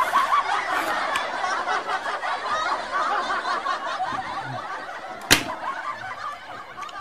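Laughter from many voices together, slowly fading away, with a single sharp smack about five seconds in.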